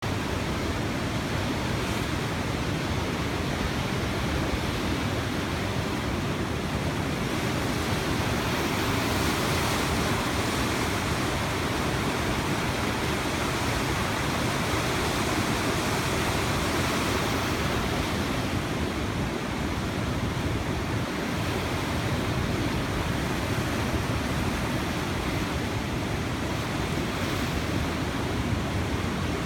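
The New River in flood, its muddy high water rushing through churning rapids and standing waves in a steady, unbroken rush of noise.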